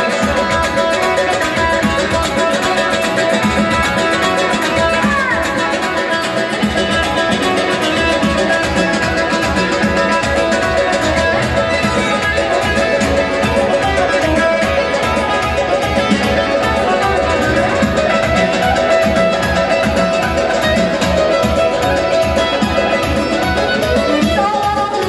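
Live instrumental Azerbaijani folk music led by a saz, with a long-necked lute picking a melody over a steady beat.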